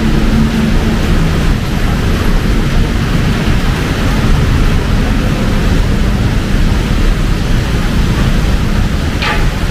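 Heavy rain pouring down, with the steady low rumble of road traffic underneath. A brief high-pitched sound cuts through near the end.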